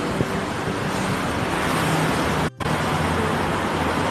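Steady road traffic noise from passing vehicles, with a low engine hum under an even rush. The sound cuts out for a moment about two and a half seconds in.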